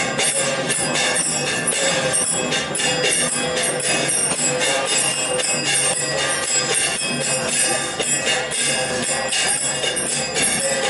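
Bells jangling rapidly and continuously amid music.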